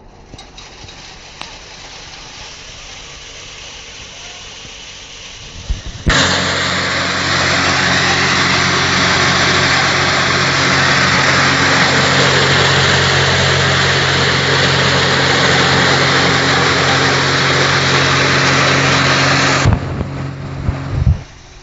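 Chaff cutter and grain grinder running with a steady motor hum. About six seconds in, it suddenly turns to a loud, dense rushing grind as material poured from a sack goes through it. The grind holds for about fourteen seconds, then drops back to the machine running empty, with a few knocks near the end.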